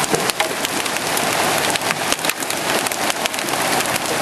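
Heavy hailstorm: a dense, steady hiss of hail and rain, broken by many irregular sharp cracks of large, almost golf-ball-sized hailstones striking.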